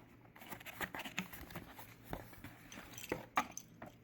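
Guitar pedal patch cables being handled: irregular crinkling and clicking, with a sharper click about three and a half seconds in.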